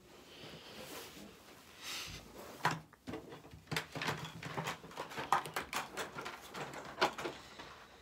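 Rustling and a run of irregular light clicks and knocks from an upright vacuum cleaner being handled and set in place while switched off.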